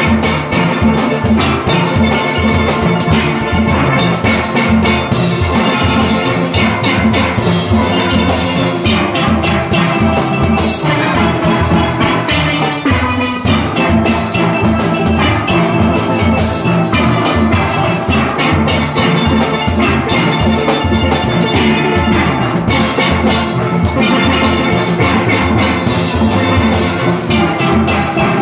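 A steel orchestra playing a steady, dense, upbeat tune together on many steelpans, with a regular drum beat running underneath.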